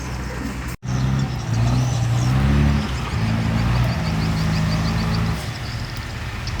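Heavy diesel construction machine engine running, then revving up under load a little over a second in, holding a steady higher speed, and easing back about five seconds in. The sound drops out briefly just before the rev.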